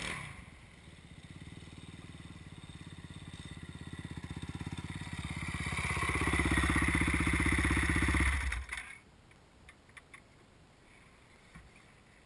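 KTM dirt bike engine running as the bike rides up close, getting steadily louder, then cutting off suddenly about nine seconds in as the engine is switched off. A short knock comes at the very start.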